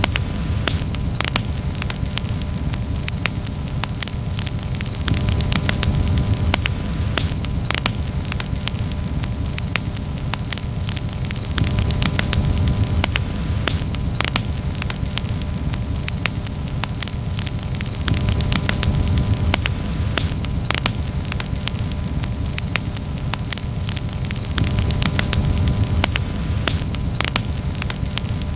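Campfire crackling: many sharp little pops and snaps over a steady low rush of burning wood.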